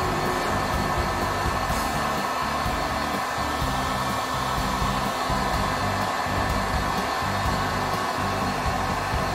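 Electric heat gun running steadily on its 2000-watt high setting: a continuous blower rush with no change in pitch or level.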